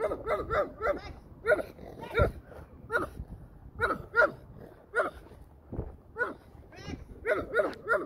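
Small dog barking repeatedly in short yaps, irregularly spaced and often in quick runs of two or three.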